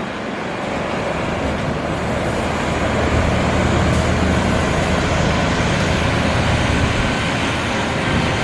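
Bus engine and road noise, a steady low rumble that builds over the first few seconds and then holds.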